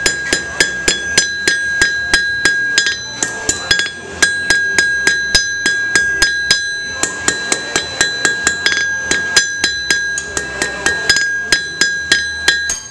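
Blacksmith's hammer striking an iron band on an anvil in a quick, even rhythm of about three to four blows a second, with a brief pause about four seconds in. The anvil rings with a steady high tone under the blows. It is finishing hammering to true up the band.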